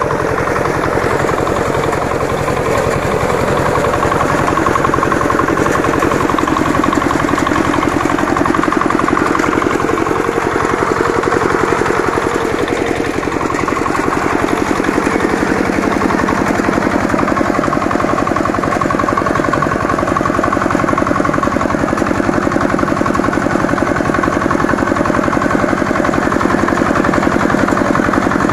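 Walk-behind power reaper's engine running steadily with a fast, even pulsing note while the machine cuts rice. The note shifts slightly about halfway through.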